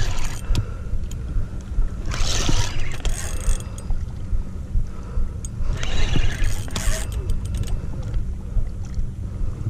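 Spinning fishing reel being cranked under the load of a large bat ray on the line, with two bursts of gear and line noise of about a second and a half each and a few sharp clicks. A steady low rumble of wind on the microphone runs underneath.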